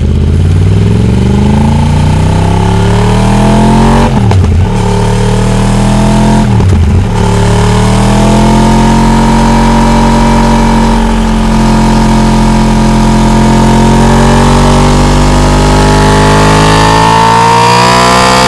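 Yamaha R1 crossplane inline-four with its uneven "big bang" firing order, accelerating hard. The engine note climbs, with two brief breaks where the pitch drops and rises again about four and six and a half seconds in, like quick upshifts. It then holds high revs and climbs again near the end.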